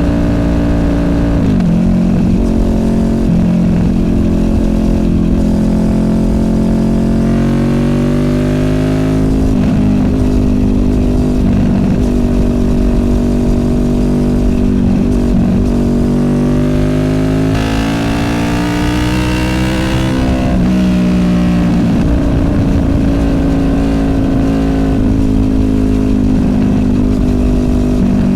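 A Honda VFR800F's V4 VTEC engine running through an SC Project Conic exhaust while riding. The revs climb and drop back sharply three times, about a second and a half in, around nine seconds and around twenty-one seconds, then hold steady near the end.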